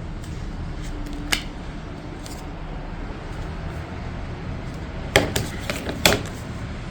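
Plastic toy track parts being handled, giving sharp clicks and knocks: one about a second in, then a quick cluster of several near the end, over a steady low hum.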